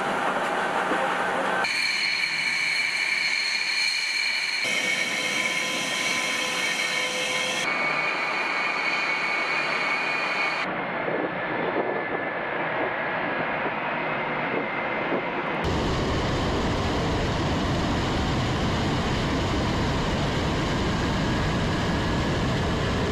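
Sukhoi Su-34 jet engines: a string of short clips of steady, high-pitched engine whine that changes abruptly at each cut. About two-thirds of the way through, this gives way to a loud, steady full-power roar as the jet makes its takeoff run.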